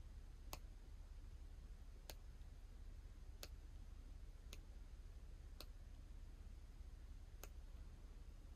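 Six faint clicks of buttons pressed on a small handheld remote control, spaced a second or two apart, over a low steady hum.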